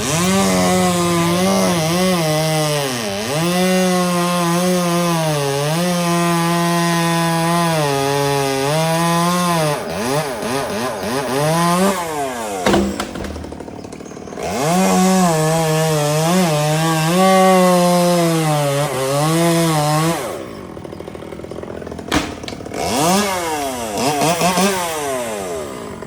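Chainsaw engine at high revs cutting wood, its pitch sagging and recovering as the bar loads up in the cut. It makes two long cuts with a short pause between them, then a few quick revs near the end.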